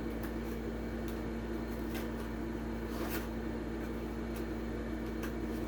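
Steady low electrical hum with a few faint, scattered crackles and taps of plastic and cardboard packaging being handled as a toy car is pried out of its pack.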